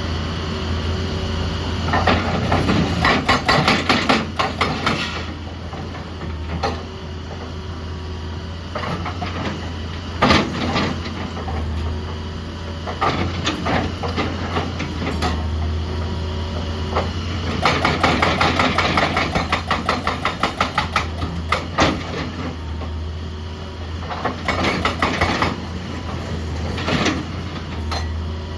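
Heavy excavator's diesel engine running steadily, with several stretches of rapid metallic clattering and knocking as the machine works against rock, plus a few single heavy knocks.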